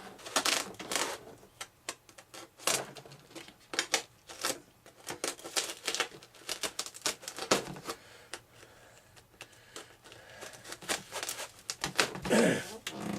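Irregular clicks, taps and short scrapes from hand work on foam airplane parts, with a block being pressed and worked in a cut-out in the foam.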